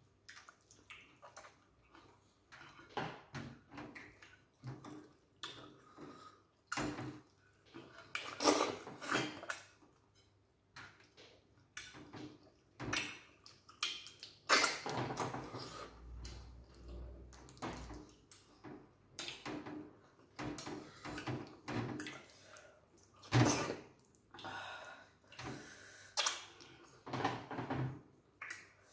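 Close-up eating sounds from two people eating by hand: irregular wet slurps and mouth noises as stringy okra soup and starch are sucked off the fingers, with chewing in between.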